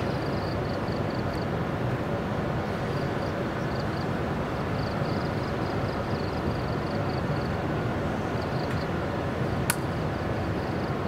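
Steady low hum from a stationary 45-ton electric locomotive standing coupled to its freight train, with insects chirping rhythmically in the grass. A single sharp click sounds near the end.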